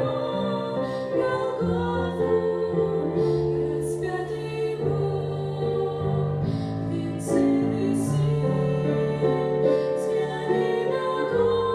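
A church worship song: voices singing held notes over keyboard accompaniment.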